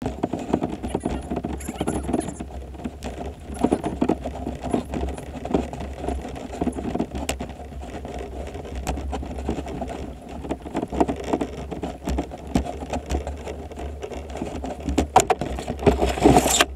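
Kayak hull dragged by its bow grab loop over pavement and then gravel: a continuous scraping rumble full of small clicks and knocks, with louder crunching near the end.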